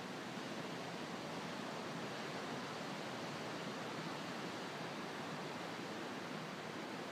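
Ocean surf breaking on a sandy beach, heard as a steady, even hiss without separate crashes.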